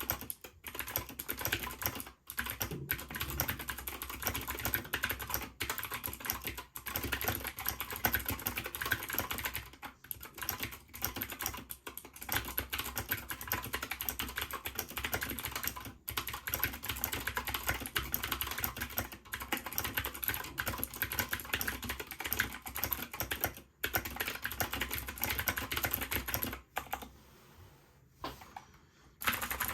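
Fast touch-typing on a Keychron K2 mechanical keyboard with Gateron G Pro Blue clicky switches and PBT keycaps: a rapid, continuous clatter of key clicks with a few brief pauses, thinning out and going quieter near the end.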